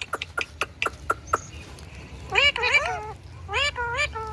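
Indian ringneck parrot calling: a run of sharp clicks in the first second or so, then short calls that bend up and down in pitch about halfway through and again near the end.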